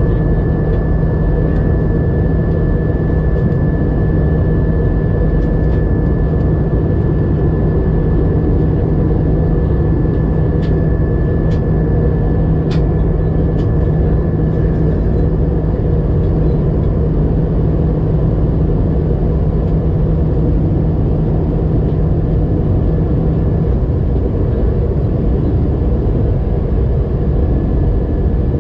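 Cabin noise inside an Airbus A320-200 airliner: the steady rush of air and the running of its CFM56 jet engines, with a low hum that drops out near the end. A few faint clicks come about halfway through.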